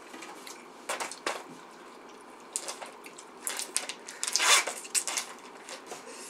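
Mealtime eating sounds: a few light clicks of chopsticks and tableware about a second in, then a loud, noisy slurp of hot-pot food from chopsticks around four seconds in.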